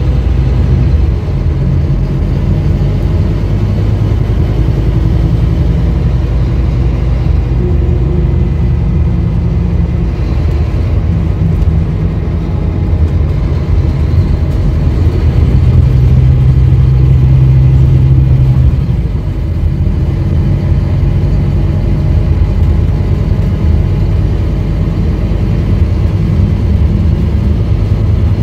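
2018 Scania K310UB city bus heard from inside the cabin while under way: the rear-mounted 9-litre five-cylinder diesel runs steadily under road noise. Past the middle the engine grows louder for about three seconds, then drops back.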